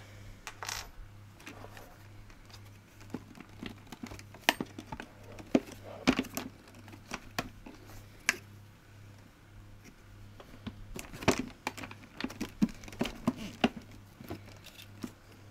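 Hard plastic parts of a Hoover Aquamaster vacuum body being handled and turned over on a towel, giving irregular light clicks and knocks with a few louder ones, over a faint steady low hum.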